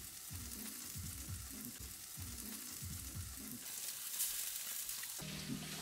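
Seafood (clams, eel and shrimp) sizzling on a gas grill grate, a steady crackling hiss. Music comes in near the end.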